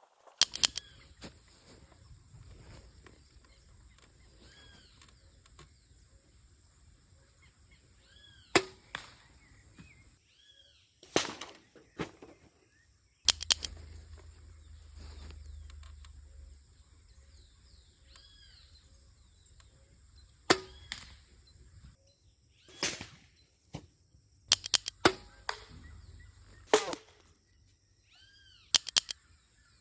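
PCP air rifle firing 5.5 mm slugs: sharp cracks every few seconds, about a dozen in all, some coming in close pairs.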